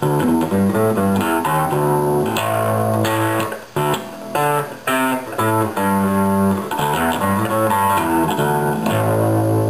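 Electric bass played through a home-built tube guitar amplifier on its high-gain distortion channel: a run of overdriven bass notes, with a short break about four seconds in.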